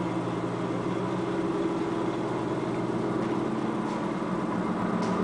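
Steady mechanical hum with hiss, several low tones held level throughout, with a few faint ticks near the end.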